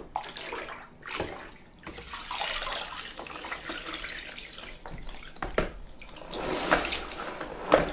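Water sloshing as a microfiber mop head is worked in a plastic mop bucket. The mop is then pumped in the bucket's pedal-driven spin wringer, which flings out water with a splashing whir, loudest in the last couple of seconds. A few sharp plastic clicks come in between.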